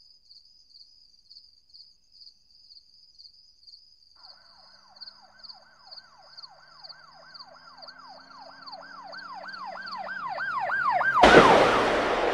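Crickets chirping in a steady pulse. About four seconds in, a siren starts wailing in a fast yelp, sweeping up and down about three times a second and growing louder. Near the end a sudden loud bang cuts over it and fades out slowly.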